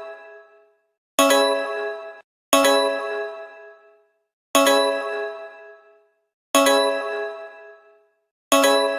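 Emergency alert alarm made of a struck bell-like chime, sounding five times at uneven gaps of about one and a half to two seconds; each strike rings out and fades, and some are cut off abruptly.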